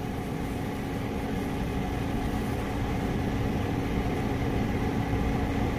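Engine idling with a steady low rumble and a faint steady hum, heard from inside a parked car.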